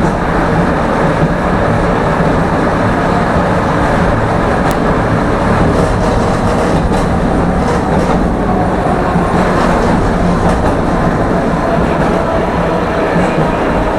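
Tram running along the track between stops: a steady rolling and motor noise, with a few clicks of the wheels over rail joints.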